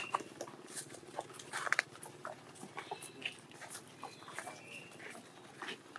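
Long-tailed macaques giving short, high squeaks, a few brief calls at the start and a cluster about three seconds in, among scattered clicks and scuffs.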